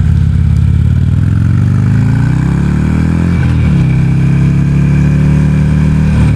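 Buell Ulysses 1200cc V-twin motorcycle engine accelerating: the revs climb for about three and a half seconds, drop sharply at an upshift, then pull on steadily in the next gear.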